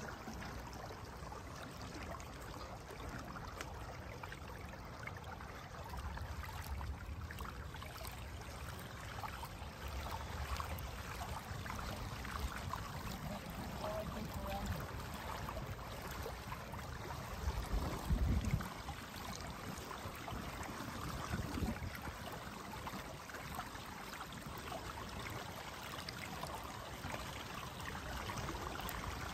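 Water rushing and trickling steadily along the pontoons of a moving pedal-driven water bike, with a brief low rumble about eighteen seconds in.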